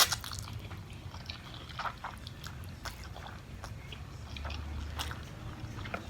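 A person chewing food close to the microphone, with scattered small clicks and crunches at irregular intervals.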